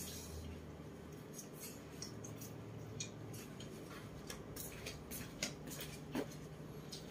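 Scattered light clicks and taps over a faint steady low hum, from pig-tailed macaques moving about and handling things on a wooden bed.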